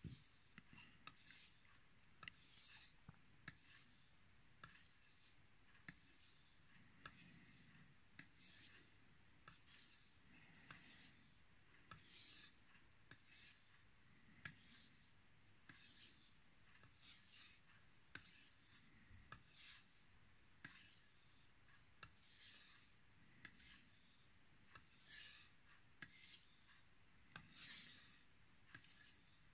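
Kitchen knife blade drawn in light passes across a wet 2000-grit Chinese natural whetstone covered in slurry. It makes a faint, rhythmic scraping swish, about two strokes a second.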